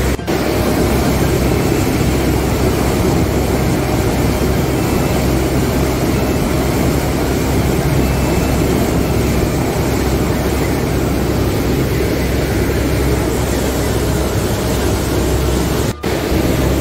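A boat's engine drones steadily under the rushing wash of its wake. The sound drops out briefly twice, once just after the start and once near the end.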